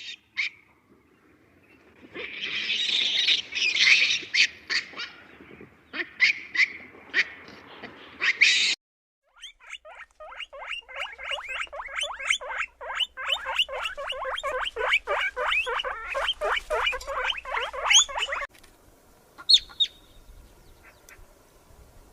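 Domestic poultry calling. A dense burst of high chirps is followed, after a sudden cut, by a fast, even run of several calls a second.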